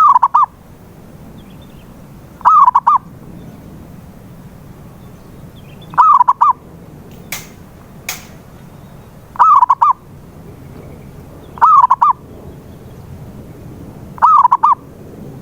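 Zebra dove cooing: six short phrases of three or four quick notes each, repeating every two to three seconds, played as a lure call to coax a silent dove into singing. Two sharp clicks come about halfway through.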